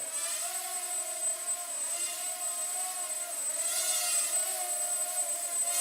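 Mini quadcopter drone with small brushed 8520 motors flying, its propellers whirring in a steady high buzz that wavers up and down in pitch as the motor speed changes.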